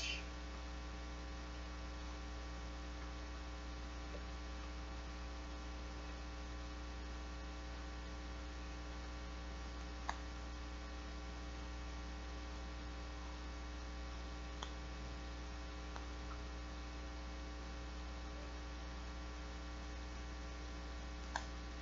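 Steady electrical mains hum, with a few faint short ticks about ten seconds in, near the middle and near the end.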